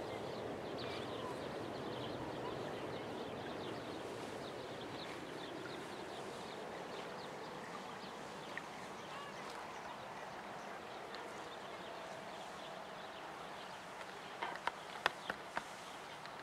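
Rural outdoor ambience: a steady soft rushing noise that fades slightly, with small birds chirping faintly throughout. A few sharp clicks come near the end.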